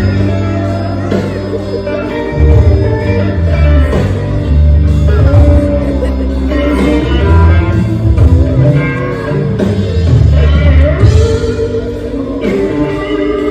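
Background music with guitar and a steady beat, with some singing.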